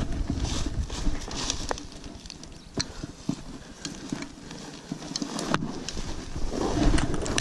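Footsteps and the rustling of tall grass and weeds as someone pushes through them, with scattered sharp clicks and knocks.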